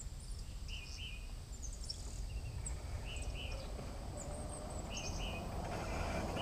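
Birds chirping in short paired calls several times, over a low rumble of a golf cart coming along the path that grows steadily louder toward the end.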